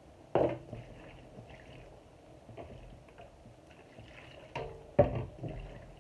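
Cookware clatter: a sharp knock about half a second in, then a cluster of knocks near the end, some with a short metallic ring, like utensils or a lid striking a cooking pot.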